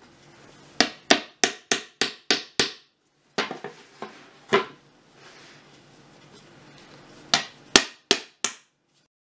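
Claw hammer driving a nail through a plywood seat board into a wooden chair frame. A quick run of about seven blows comes first, then a few lighter ones around four seconds in, and four final blows near the end.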